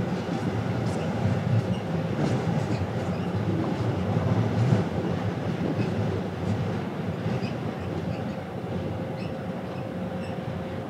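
Steady low rumble of a passenger ferry underway, heard from on board, with a faint steady hum above it.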